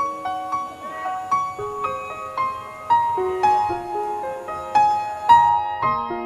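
Background piano music: a melody of ringing, overlapping notes, about two or three a second.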